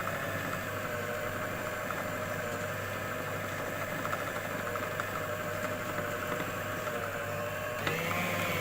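Electric food processor motor running steadily with a whine, grinding mutton mince with spices into a smooth paste; its note shifts near the end.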